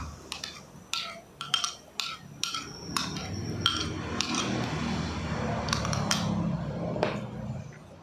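A spoon clinking and scraping against cookware as ground pineapple is spooned into the pot of half-cooked pineapple. There is a quick run of sharp, ringing clinks over the first few seconds and a few more later, over a low steady hum that fades near the end.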